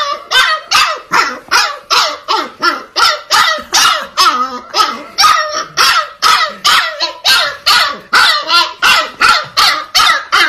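Husky puppy barking over and over in short, high barks, about three a second, without letting up.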